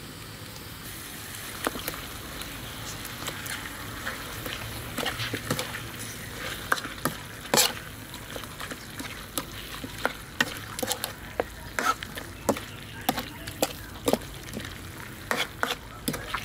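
Chicken legs frying in red spice paste in a metal wok, sizzling, with a metal ladle scraping and knocking against the wok again and again as the pieces are stirred. The sizzle starts about a second in.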